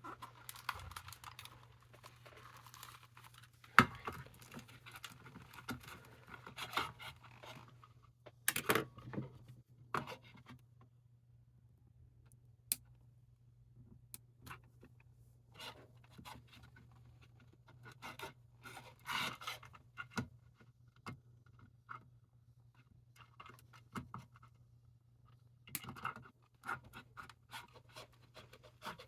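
Scattered small clicks, taps and scratching of hands working on a Furby's insides while its speaker is replaced, with one sharper click about four seconds in. A faint steady low hum runs underneath.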